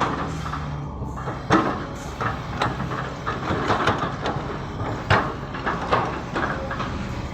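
Excavator's diesel engine running steadily under repeated metal clanks and knocks, about a dozen sharp ones scattered through, the loudest about one and a half and five seconds in.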